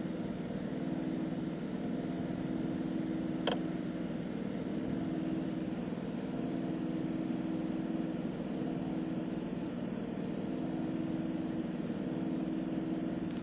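Small refrigerator running with a steady mechanical hum that carries a few fixed low tones, heard from inside the fridge. A single sharp click comes about three and a half seconds in.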